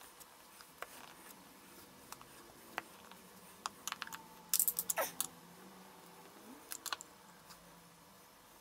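Scattered light clicks and taps of hand tools, a wrench and a screwdriver, working a threaded insert into a plywood bench-pad base, with a quick run of clicks about halfway through.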